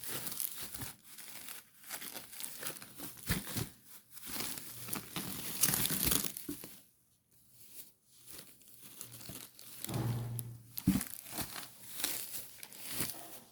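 Packaging crinkling and rustling as a replacement laptop keyboard is handled, with a brief quiet gap about seven seconds in.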